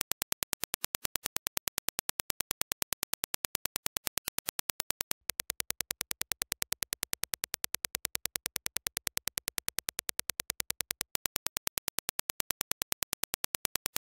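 A rapid, even train of sharp clicks: a Dirac impulse test signal. It breaks off briefly about five seconds in, then plays as reproduced by Warwick Acoustics Aperio electrostatic headphones and picked up by a dummy-head measurement microphone, with a faint low hum underneath. About eleven seconds in, the clean reference clicks return.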